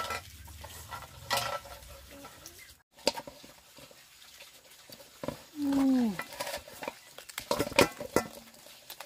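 A utensil clinking and scraping against a cooking pot as food is stirred, in short irregular knocks. A little past the middle comes a short call that falls in pitch, the loudest sound in the stretch.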